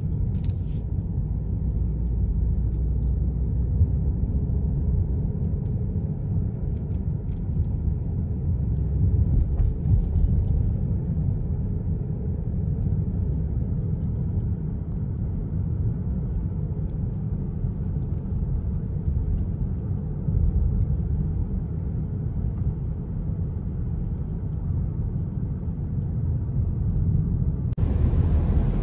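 Steady low rumble of road and engine noise heard inside a moving car's cabin. Near the end it switches abruptly to a brighter hiss of tyres on a wet road.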